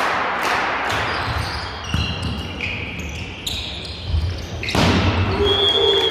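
Indoor volleyball match: a ball bouncing on the court floor and hall noise, with a sudden loud rise of crowd noise near the end.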